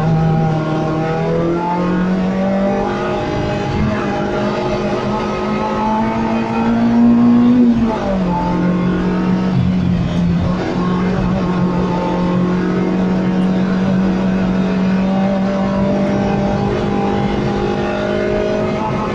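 Citroën Saxo VTS 1600's four-cylinder engine heard from inside the cabin, driven hard at high revs. Its pitch climbs over the first couple of seconds and keeps rising to the loudest point about eight seconds in. It then drops sharply and holds steady for the rest.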